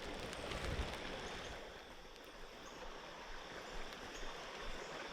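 Steady rain falling, an even hiss, with a few low gusts of wind on the microphone in the first second.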